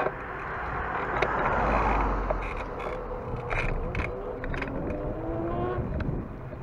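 Street traffic: a car passes about two seconds in, then a vehicle engine rises in pitch as it pulls away, with scattered light clicks.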